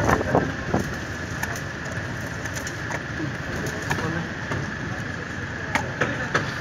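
A few light clicks and knocks from hands handling a plastic controller housing and its wiring, over a steady background noise.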